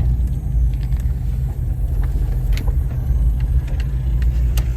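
Box Chevy rolling slowly, its engine and road noise making a steady low rumble, with a few faint clicks.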